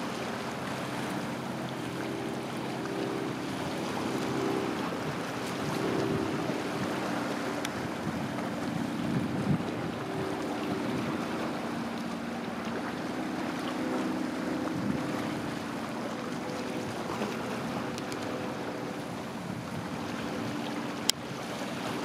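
Water washing against shoreline rocks with wind on the microphone, under a steady low engine hum. A single sharp click near the end.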